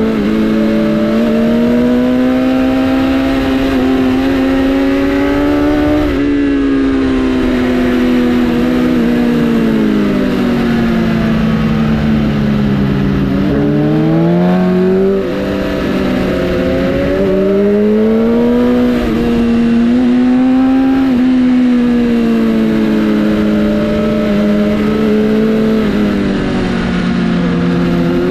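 Sport motorcycle engine running continuously, its pitch slowly rising and falling with the throttle; it sinks steadily for several seconds in the middle, then climbs again.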